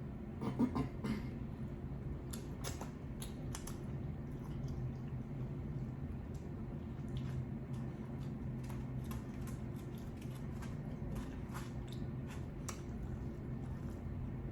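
A person chewing and eating shrimp-boil food, with many short wet mouth clicks scattered through, over a steady low hum.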